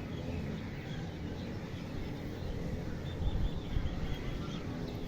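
Outdoor ambience: a steady low rumble with faint bird chirps, swelling a little about three seconds in.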